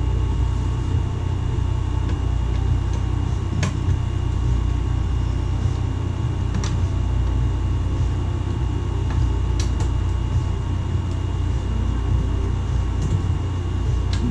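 Steady low machine hum with a few short, light clicks about three seconds apart as screws and metal parts of an eMac are handled during disassembly.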